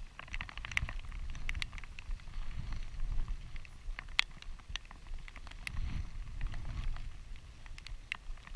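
Light rain falling on a head-mounted camera housing and rain jacket: scattered, irregular sharp ticks over a low rumble.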